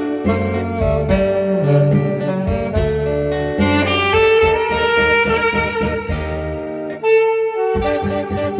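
Saxophone playing a slow song melody in long held notes over an accompaniment track with bass and guitar.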